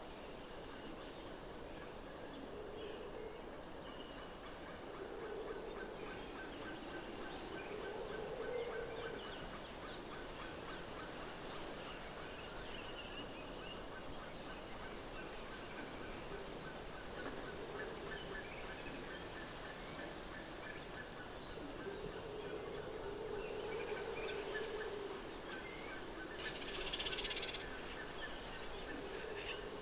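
Natural tropical ambience: a steady, high insect drone throughout, with a faint rapid pulsing chorus, scattered short bird chirps, and several low calls about a second long.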